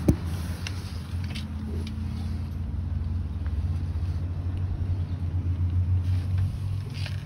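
Steady low drone of a 2004 Dodge Cummins diesel truck running, heard from beneath it beside its newly installed AirDog Raptor 4G 100 lift pump, with one knock right at the start.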